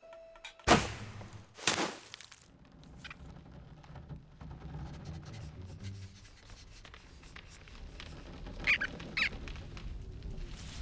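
Animated-film sound effects: two sharp hits about a second apart, the loudest sounds, then a low rustling background and two short high squeaks from the cartoon rodents near the end.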